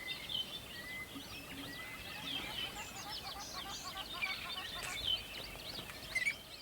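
A chorus of small songbirds chirping and twittering, many quick overlapping notes, over the steady rush of a flowing river.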